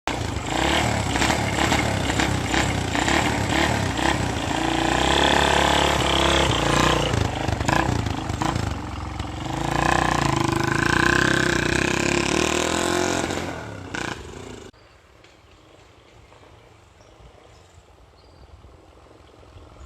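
Motorcycle engine running and revving, loud and steady, then cutting off abruptly about three-quarters of the way through, leaving only faint background sound.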